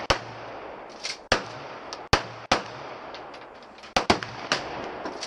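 Pistol gunshots: about six loud sharp reports at uneven intervals, two of them in quick succession about four seconds in, with fainter shots between. Each shot is followed by a short echoing tail.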